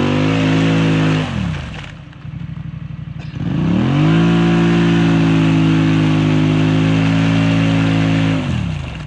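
A 2018 Polaris Sportsman 850 ATV's twin-cylinder engine is revved hard with its wheels spinning in deep mud and throwing spray. The machine is bogged and going nowhere. The revs fall to idle about two seconds in, then rise again and hold high until they drop off near the end.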